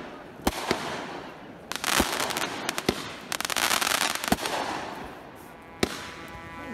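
Aerial fireworks going off: about half a dozen sharp bangs as shells burst, with two longer stretches of dense crackling from the glittering stars.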